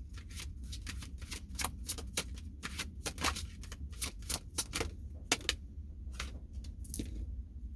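Tarot cards being shuffled and handled: a quick, irregular run of sharp clicks and snaps over a steady low hum.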